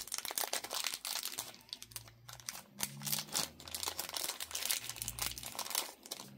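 Small clear plastic zip-lock bag crinkling as fingers work it open, a dense run of crackles that thins out near the end.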